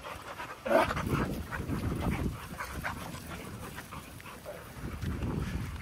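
American Bully dogs let out of their kennels: one dog gives a short bark about a second in, followed by scattered faint scuffling and patter as the dogs run about.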